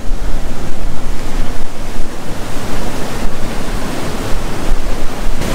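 Loud, steady rush of water at the top of Diyaluma Falls, with wind buffeting the microphone.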